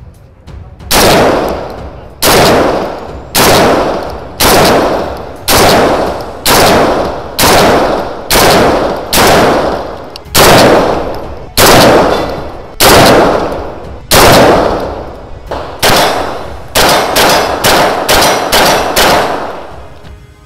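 Single shots from a semi-automatic AR-style long gun, about a dozen, spaced a little over a second apart, each followed by a long echo. Near the end comes a quicker string of lighter shots, about two to three a second, from a CZ Scorpion carbine.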